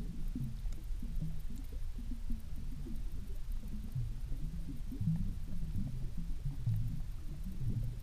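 Muffled, irregular low rumbling of water heard through an underwater camera's housing, with no clear higher-pitched sounds.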